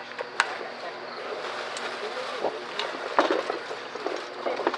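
Wood fire burning, with a couple of sharp crackling pops right at the start and then a steady hiss. Low voices can be heard in the background.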